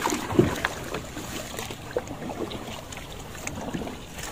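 Water splashing and trickling as a nylon gill net is paid out over the side of a small wooden boat, with scattered light knocks.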